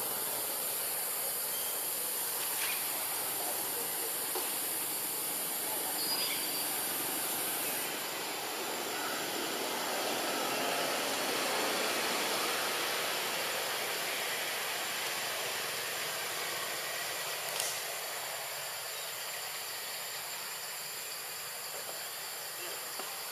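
Steady outdoor background hiss, with a higher hiss layered on top that cuts off suddenly about eight seconds in, and a few faint clicks.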